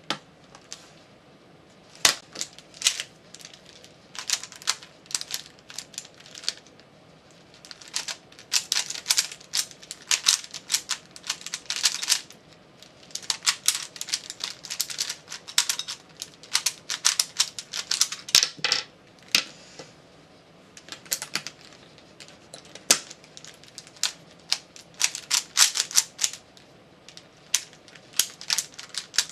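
Rubik's brand 3x3 cube being turned fast in a speedsolve: rapid runs of plastic clicking and clacking in bursts, broken by short pauses.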